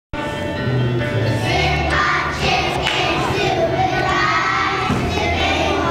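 A group of children singing together, with steady low notes underneath.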